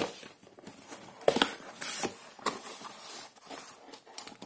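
Cardboard smartphone box being opened by hand: the lid sliding off with a light scraping and several sharp taps and knocks of the cardboard, two of them close together about a second and a half in.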